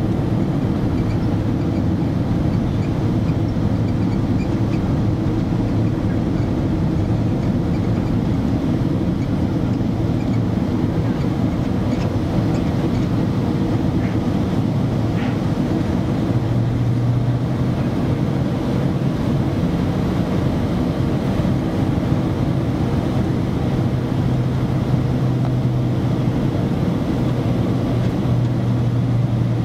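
Steady low cabin drone inside a Boeing 767-300 on approach, heard at a window seat beside the wing engine: jet engine and airflow noise. A low hum in it steps up slightly in pitch about halfway through.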